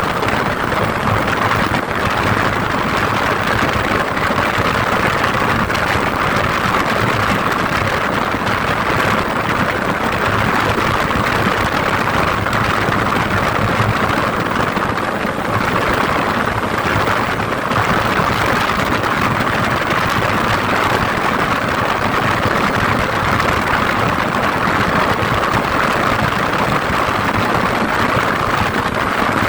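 A vehicle on the move: a steady, even rumble of engine and road noise.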